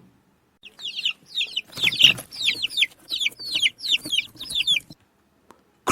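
Domestic chicks cheeping: a run of short, high peeps, each sliding down in pitch, about three or four a second, starting just under a second in and stopping about a second before the end.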